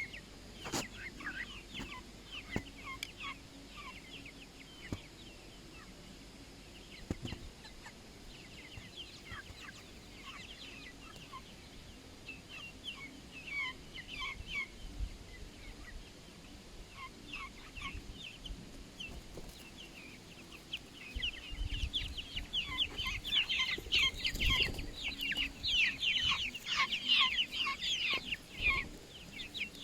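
A flock of Wenchang chickens calling, with many short, high, falling chirps scattered through, growing busier and louder over the last third.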